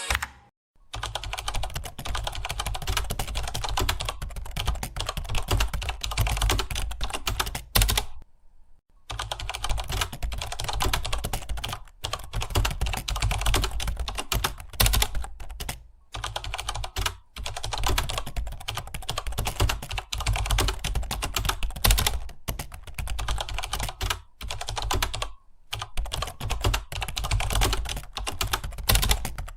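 Fast, continuous typing on a computer keyboard, with a rapid patter of keystrokes. It is broken by a few short pauses of under a second.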